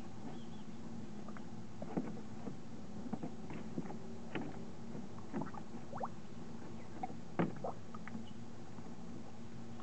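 Shallow water in a plastic wading pool splashing and sloshing as fishing cat kittens wade and paw at it: irregular small splashes, several a second at times, over a steady low hum.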